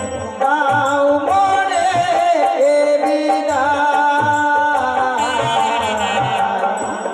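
Bengali folk devotional music for a Manasa gaan stage play: a wavering, ornamented melody over drum beats and a steady high ticking percussion.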